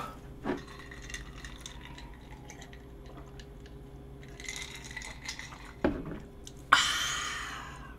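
A person drinking from a glass in small sips and swallows, then a knock about six seconds in as the glass goes down on the table, followed by a sudden, long breathy exhale that fades away.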